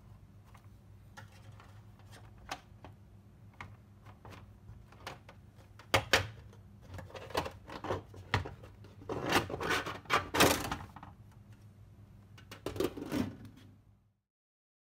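Lampshade of a cloud-shaped ceiling lamp being handled and pressed into its frame: light ticks and taps, then sharp clicks about six seconds in and longer rubbing and scraping of the shade against the frame a few seconds later. A faint steady hum sits underneath, and the sound cuts off near the end.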